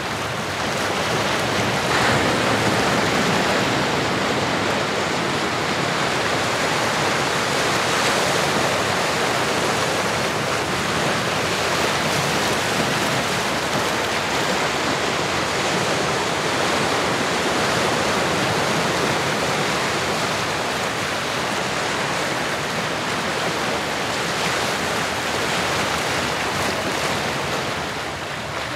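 Ocean surf: a steady rush of waves washing in, swelling gently now and then.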